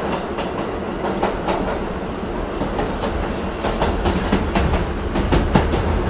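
Train running on rails: a steady low rumble with the clickety-clack of wheels over rail joints. It grows a little louder, and the clicks come more often, in the second half.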